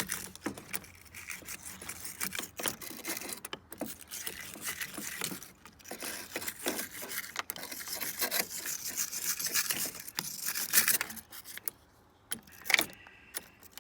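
Small steel wire brush scrubbing corrosion off a car battery's positive terminal clamp: quick, irregular scratching strokes, pausing briefly near the end.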